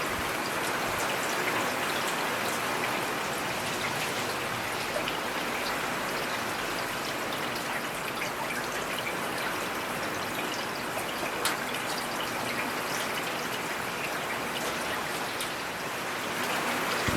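Steady rain falling: an even hiss with scattered single drops ticking sharply through it.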